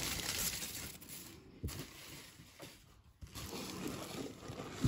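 Packing paper rustling and crinkling as it is handled, in two stretches with a quieter gap between them, and a few soft knocks.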